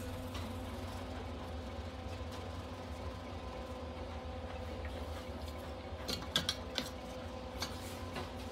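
A steady low electrical hum, with a few light metallic clinks and rustling as leather welding gloves are pulled on and a MIG welding gun is handled, the clinks a few seconds in.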